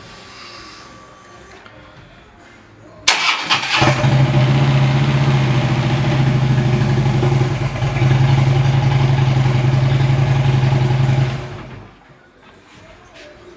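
Car engine cranking briefly about three seconds in, catching and running steadily for about seven seconds, then shut off. It starts after its dead battery has been charged, which suggests the no-start was only a flat battery.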